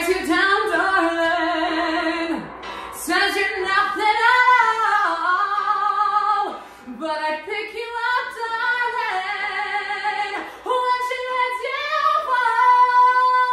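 A woman singing solo, belting long held notes with vibrato and sliding runs, in four phrases with short breaks between them.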